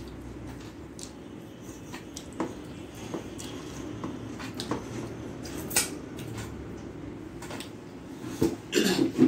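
Fingers mixing and scooping rice and curry on a stainless steel plate: scattered small clicks and soft scrapes over a steady low hum, with a brief voice near the end.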